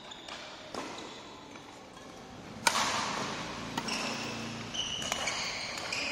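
Badminton rackets striking the shuttlecock during a doubles rally: several sharp cracks, the loudest a little under three seconds in. Short high squeaks of court shoes on the floor come between the hits.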